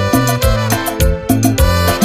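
Cumbia band playing an instrumental passage: horns and keyboard over a moving bass line and a steady beat.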